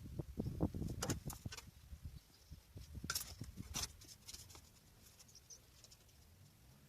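Irregular knocks and taps from hand-tool work on the car's bodywork, thick for the first couple of seconds, then two sharper clicks a little later before it goes quiet.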